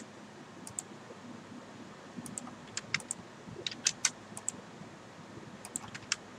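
Scattered clicks of a computer keyboard and mouse, a few keystrokes at a time in short clusters, as AutoCAD commands are typed and points picked.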